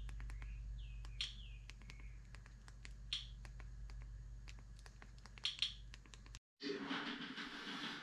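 Irregular sharp clicks of a TV remote's buttons over a steady low hum, with a few short bird chirps. Near the end the sound cuts to a louder, busier kitchen background.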